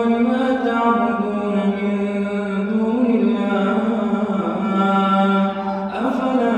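A man's voice chanting Quran recitation in Arabic, a slow melodic line of long held notes that rise and fall, with a short break near the end.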